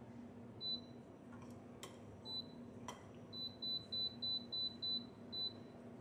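Portable induction cooktop's control beeping as its power dial is turned: single short high beeps, then a quick run of about seven at roughly three a second and one more near the end, with a few light clicks, over a faint low hum.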